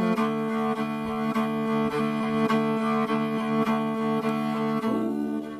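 Mongolian throat singing (overtone singing): a steady low drone with strong held overtones ringing above it, pulsing about three times a second.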